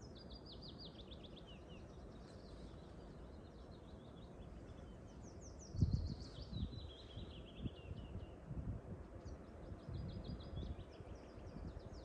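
A songbird singing three times, each song a quick, high trill that runs downward in pitch for about two seconds, over a steady low background hum. From about halfway through, gusts of wind rumble on the microphone.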